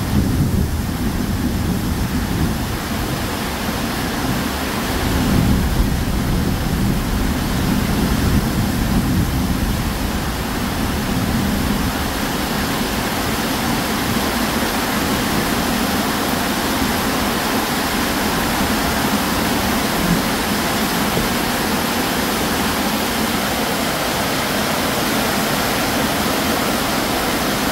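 Heavy tropical downpour: a steady rush of rain. A low rumble swells a couple of times in the first dozen seconds, then the rain settles into an even roar.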